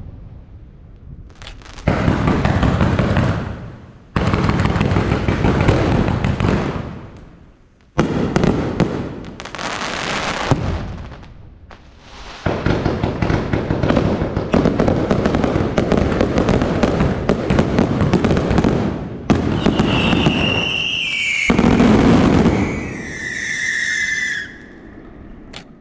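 Aerial fireworks shells bursting overhead in runs of dense, rapid crackling reports, each run a few seconds long with brief pauses between. Near the end, high whistles that fall in pitch rise over the bangs before the barrage fades out.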